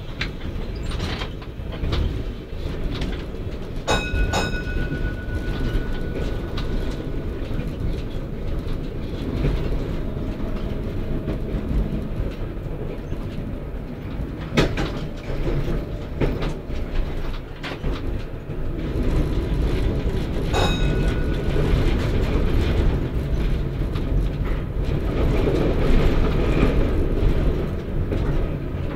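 V3A articulated tram running along its track: a steady rumble of wheels on rails with scattered clicks. Two brief high ringing tones come through, one a few seconds in and one about two-thirds through, and the rumble grows louder near the end.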